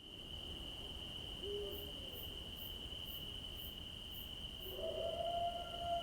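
Night forest sound effect: a steady, high, unbroken cricket trill. A short low hoot comes about a second and a half in, and a long howl begins near the end.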